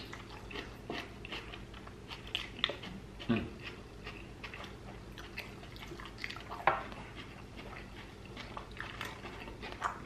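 Close-miked eating sounds: chewing and small wet mouth noises, with scattered light clicks and taps throughout.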